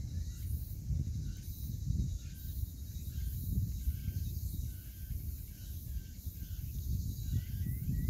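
Wind rumbling on the microphone over a tidal mudflat. A bird gives short calls about twice a second, and grass insects chirr high and continuously.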